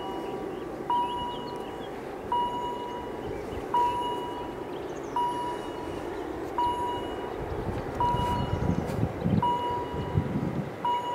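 A warning bell dings steadily, about once every second and a half, each ding opening with a click. From about eight seconds in, the low rumble of the two approaching Bombardier TRAXX diesel locomotives hauling a heavy freight train grows beneath it.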